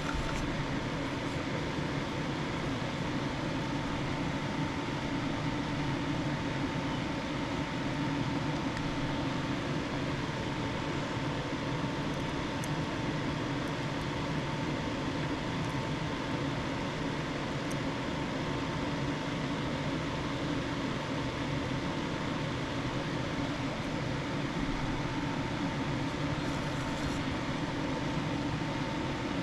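Steady machine hum with a constant high whine over it, unchanging throughout, and a couple of faint ticks.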